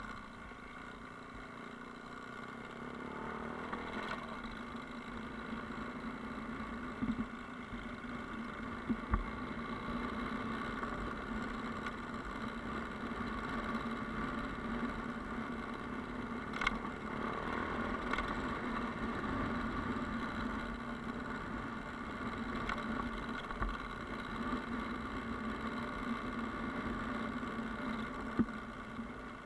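Yamaha Ténéré motorcycle engine running at a fairly steady speed on an off-road track, with a few short sharp clicks, the clearest about halfway through.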